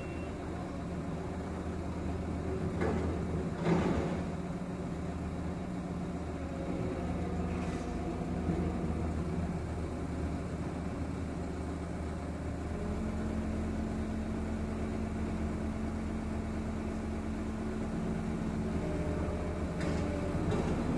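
Diesel engine of a Dynapac 250 single-drum road roller running steadily, heard through a car's windscreen; its note shifts slightly about 13 seconds in. A brief knock sounds about four seconds in.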